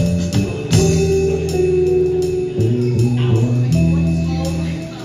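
Live band jam: electric guitar and electric bass playing held, changing notes over drums with regular cymbal strokes.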